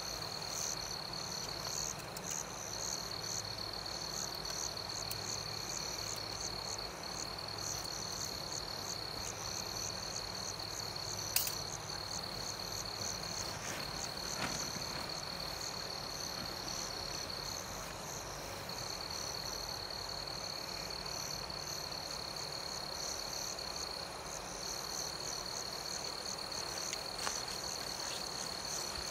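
Crickets chirping in chorus: an unbroken high trill with fast repeating chirps above it, and one sharp click about eleven seconds in.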